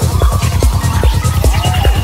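Dark psytrance track at about 147 beats a minute: a driving kick drum and rolling bassline under gliding, squelchy synth lines.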